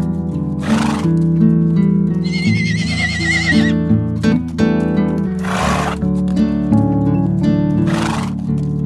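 A zebra's high, quavering whinny, lasting about a second and a half from just after two seconds in, over loud background music with a beat.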